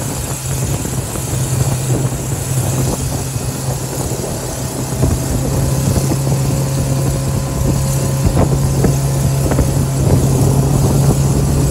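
Jet boat's Ford/Kodiak 2.4-litre inline-four running steadily under way, driving a Hamilton 751 water jet, heard from aboard with a constant rush of wind and water. It gets a little louder about five seconds in.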